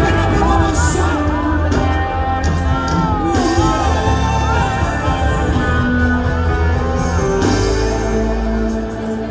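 Worship music: a full band with a steady bass and a singing voice sliding between notes.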